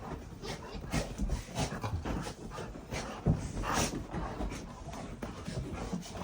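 Golden retrievers panting and sniffing close by, with scattered short rustling bursts of movement.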